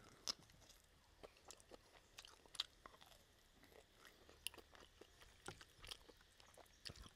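Close-miked chewing of pork rib meat being gnawed off the bone: faint, irregular wet clicks and smacks from the mouth.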